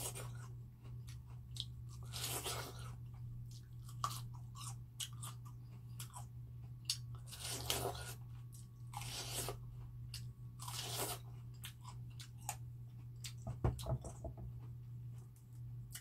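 A person biting into and chewing ripe watermelon flesh off the rind, close to the microphone: five or so louder bites at uneven intervals, with small mouth clicks and smacks between them. A steady low hum sits underneath.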